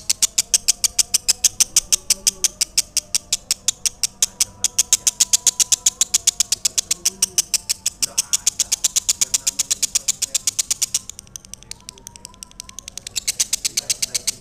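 Lovebird singing: a long, fast, even string of high, sharp chirps, about seven a second, that breaks off for a couple of seconds and then starts again near the end.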